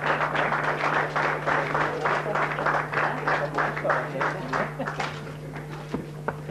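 Audience applauding, thinning out and dying away about five seconds in, over a steady low hum.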